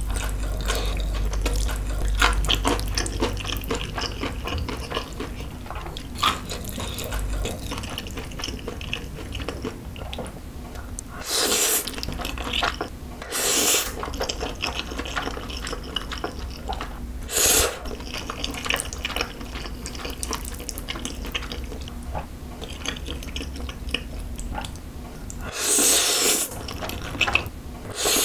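Slurping of spicy fire noodles topped with corn cheese, with wet chewing and small mouth clicks in between. Five louder slurps are spread through, two of them close together near the end.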